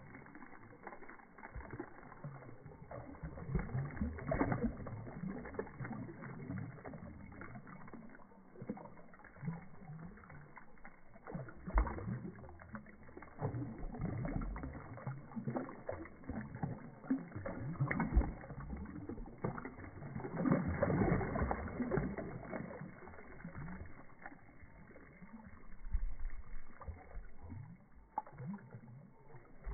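Water splashing and sloshing as a crowd of fish thrash at the surface taking food, coming in irregular surges, the biggest about twenty seconds in, with a few sharp clicks.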